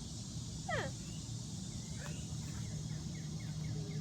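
Chirp-like calls: one short rising call under a second in, then several fainter quick chirps, over a steady low hum.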